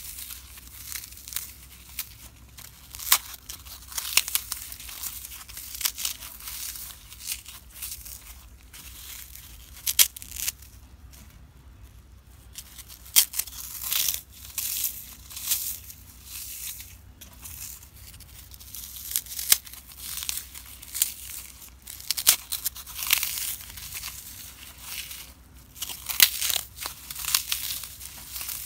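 Dry, unsoaked floral foam crunching and crumbling as hands squeeze and break it apart, in a run of irregular crackles with a short lull a little past the middle.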